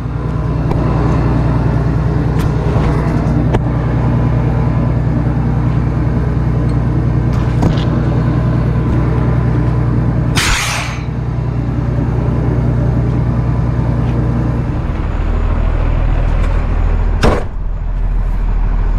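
Diesel engine of a flatbed straight truck idling steadily. About ten and a half seconds in there is a brief hiss of compressed air from the tire-inflation hose, and near the end a short sharp knock.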